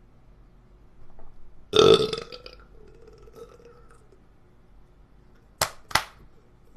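A loud, rough belch about half a second long, about two seconds in. Near the end come two sharp clicks in quick succession.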